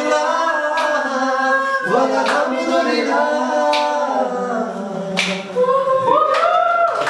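Male voices singing together a cappella, with no instrument, holding long notes that slide in pitch, in the style of a Hindi film song.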